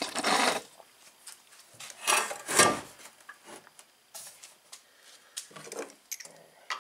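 Handling noises at a wooden workbench: scattered rubbing and scraping, with a single knock about two and a half seconds in.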